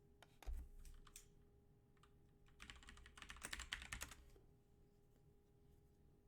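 Faint typing on a computer keyboard: a few keystrokes about half a second in, then a quick run of keys for a second and a half from about two and a half seconds in, over a faint steady hum.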